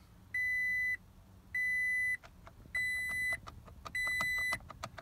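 Toyota Tacoma's dashboard warning chime with the ignition on: a steady high beep about two-thirds of a second long, repeating four times about every 1.2 seconds, with faint clicks between the beeps.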